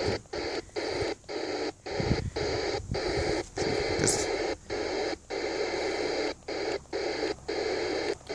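President Grant II CB radio's speaker giving a steady static hiss with the squelch open. The hiss cuts out briefly about a dozen times as the channel is stepped up, one channel at a time, while scanning the band for stations.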